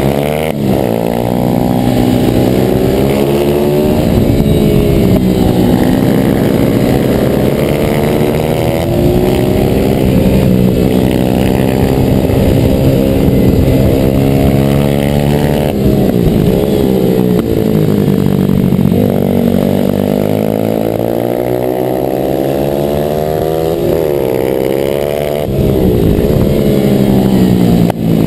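Onboard pit bike's YX 140cc four-stroke single-cylinder engine run hard round a tight track, its pitch climbing under throttle and dropping when shut off for corners, over and over.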